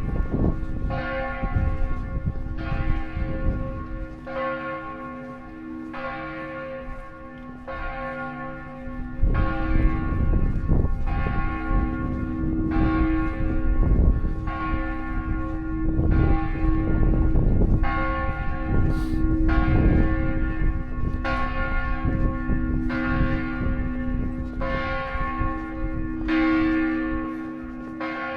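Church bells tolling, about one strike every one and a half seconds, each stroke ringing on into the next over a low rumble.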